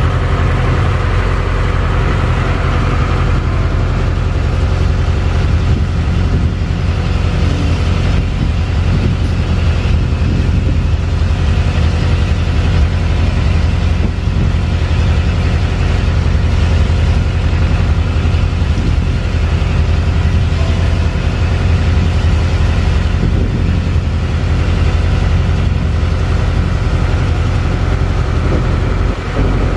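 A fishing boat's engine running steadily at a constant speed, with a deep, even hum.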